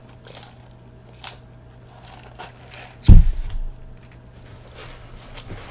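Faint scattered clicks and small handling noises, then one sudden loud low thump about three seconds in that fades within about half a second.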